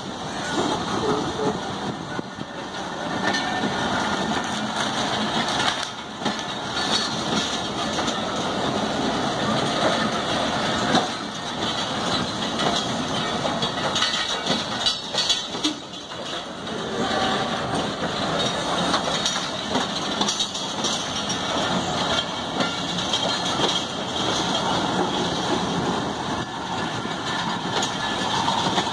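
Pakistan Railways passenger coaches rolling past at close range: a steady rumble of steel wheels on the rails, with occasional clicks and clunks.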